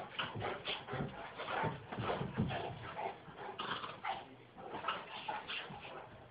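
Two dogs play-fighting: a rapid, irregular run of short whines and grunts.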